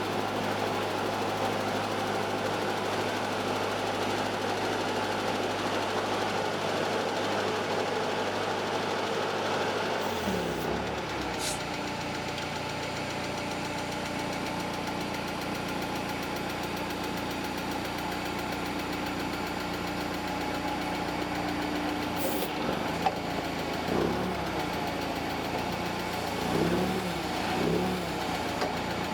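Propane engine of a CAT/Mitsubishi FG35 forklift running steadily. About ten seconds in its note changes to a different steady pitch. Near the end there is a sharp click, then a few brief rises and falls in pitch.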